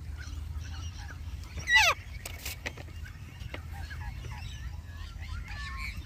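A mixed flock of park birds (corellas, swamphens and ducks) calling around a feeding spot: a scatter of short chirps and whistles, with one loud, falling squawk just under two seconds in.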